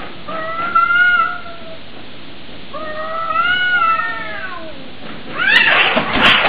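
Domestic cat yowling: two long, drawn-out, wavering warning calls, then a loud, harsh screeching outburst about five and a half seconds in.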